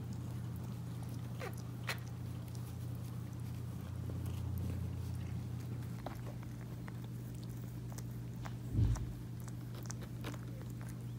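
Calico mother cat licking and chewing, small wet clicks over a steady low hum, with one dull bump about nine seconds in.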